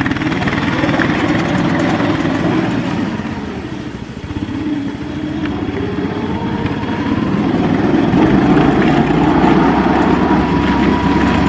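ZiD Vyuga mini snowmobile's engine running under way. It eases off about four seconds in, then climbs in pitch and holds at higher revs, louder, through the end.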